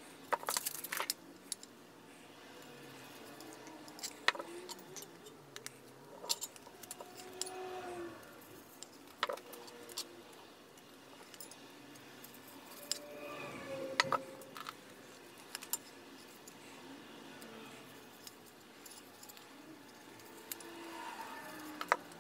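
Scattered light clicks, taps and rustles of hands handling an insulated water bottle and pressing vinyl stickers onto it, with beaded bracelets clinking now and then.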